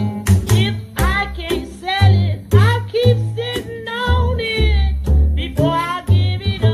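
Upright double bass plucked in a walking blues line, its low notes changing about twice a second. Over it a band recording's lead melody bends and wavers from note to note.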